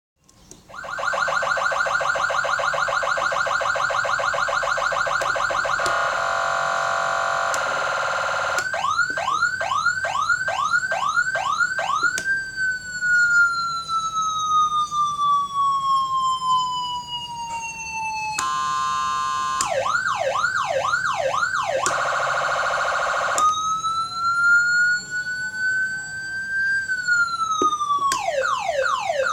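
A 15-watt, 12-tone electronic siren module stepping through its tones, a few seconds each. It plays a fast warble, quick repeated rising whoops, a long slow falling wail, a stepped hi-lo section, another fast warble, and a slow rise that then falls away.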